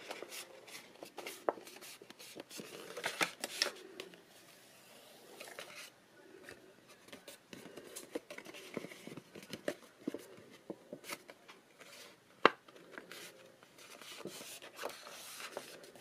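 Patterned craft paper rustling and crackling as it is handled and folded along its score lines, with scattered small taps and one sharp click about twelve seconds in.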